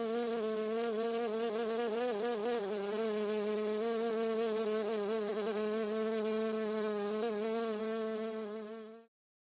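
Bee buzzing in flight: a steady hum whose pitch wavers slightly, fading and stopping abruptly near the end.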